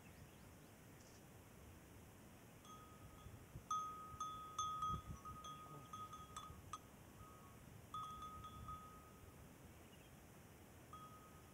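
Metal bell on a goat's neck clinking and ringing in a string of short, faint strikes as its rope collar is handled. The ringing starts about three seconds in and comes and goes until about nine seconds in.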